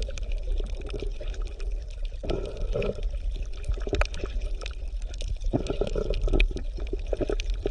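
Sea lions calling with rough, low roars, once about two seconds in and again around six seconds, over a steady low rumble of water.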